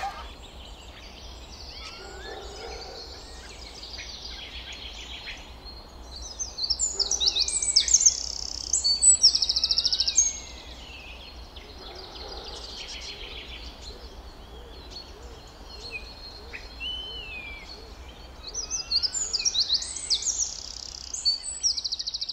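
Several songbirds chirping and singing, with rapid trills and short whistled slides, busiest in a spell about seven seconds in and again near the end, over a faint steady low hum.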